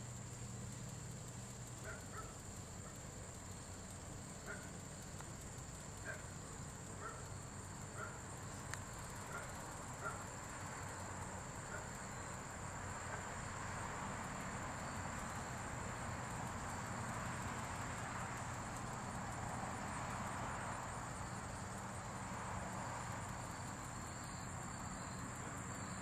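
A steady high-pitched insect trill, with a faint short chirp about once a second during the first half and a faint hiss that swells in the second half.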